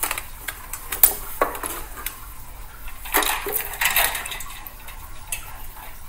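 Stainless steel dog bowls clinking and scraping in a raised feeder as a puppy noses into one and paws into the other, which holds water and ice cubes. The clinks come irregularly, with a busy run of them about three to four seconds in.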